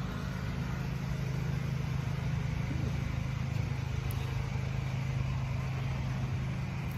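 Pressure washer running steadily: a constant low drone over a broad hiss.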